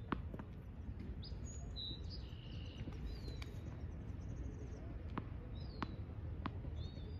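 Small birds chirping in short gliding calls over a steady low background rumble, with a few sharp taps of a tennis ball bouncing on the hard court.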